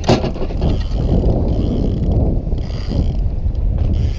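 Spinning fishing reel whirring and ratcheting as it works against a hooked, hard-running fish, with a sharp knock at the start. A steady low rumble of wind on the microphone runs underneath.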